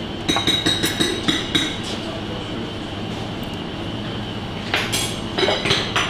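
Metal plating tweezers clicking and tapping against a plastic tub in two short flurries, one just after the start and one about five seconds in, over a steady background hum.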